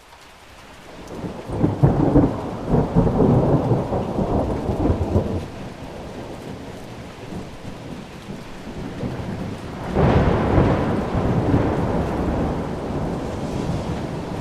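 Thunderstorm: steady heavy rain with two peals of thunder. The first rolls in over a few seconds and rumbles for several more. The second breaks suddenly about ten seconds in and slowly dies away under the rain.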